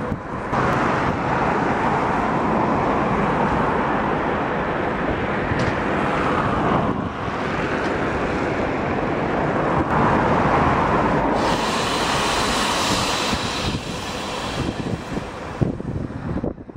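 2TE116 twin-section diesel locomotive, its diesel engines running loud and steady close by.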